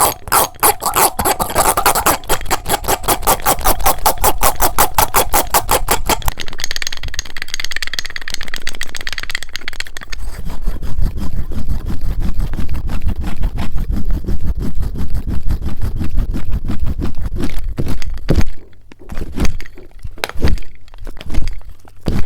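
Fast, aggressive comb or brush strokes scraping directly on the microphone, as in ASMR hair-combing. The strokes come several a second for the first few seconds, turn into a hissy rubbing, then a deeper, heavier rubbing from about ten seconds in, and thin out to separate strokes near the end.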